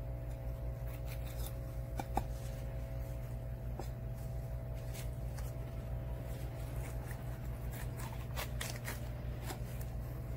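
A knife cutting along the backbone of a whole yellowtail amberjack (hiramasa) on a wooden board: short, irregular scrapes and clicks of the blade against bone and board, over a steady low hum.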